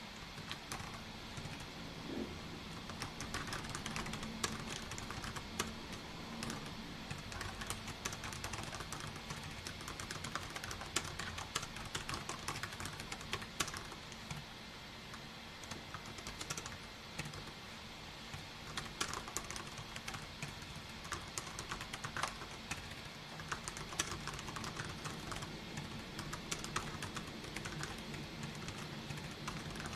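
Typing on a computer keyboard: a steady run of irregular key clicks with short pauses, over a faint low steady hum.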